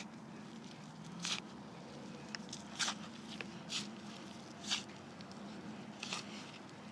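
Digging through loose garden soil to turn up potatoes: a series of short scraping strokes, about one a second.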